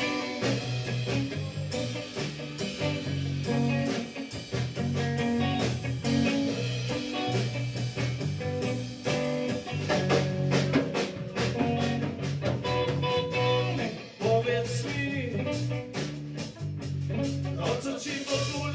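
Background music: a blues-style guitar tune over bass and drums with a steady beat.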